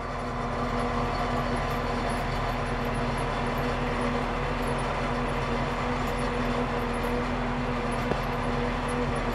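Landini 65 Blizzard tractor's diesel engine running steadily under load in the field, heard from inside the cab, with light rattling.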